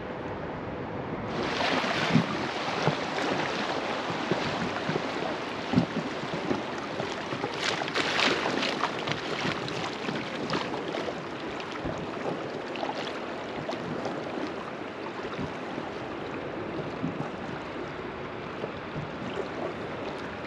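River water rushing and splashing around a floating raft, a steady wash broken by small splashes, busiest about a second and a half in and again around eight seconds.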